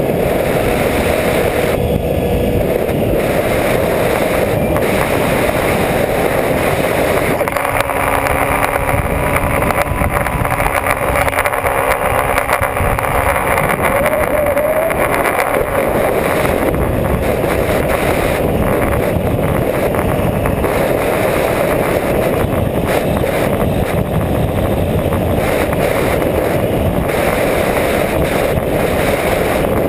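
Onboard sound of a Skywalker 1900 RC plane in flight: its electric motor and propeller run steadily under a loud rush of wind over the camera's microphone.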